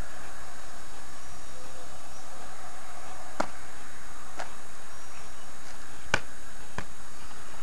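Steady outdoor background hiss with a few sharp knocks, about one a second from halfway through; the loudest comes about six seconds in and is followed by a weaker one.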